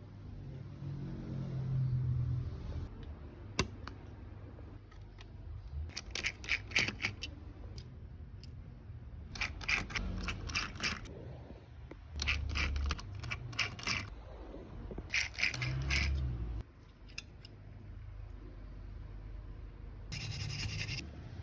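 Quick scraping or brushing strokes on laptop parts during a cleaning, coming in several short bursts with pauses between, plus a single sharp click early on.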